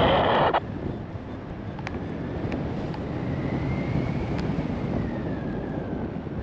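Wind rushing over the microphone during a paraglider flight: a steady low rumble of air noise, with a faint thin tone that rises and then falls midway.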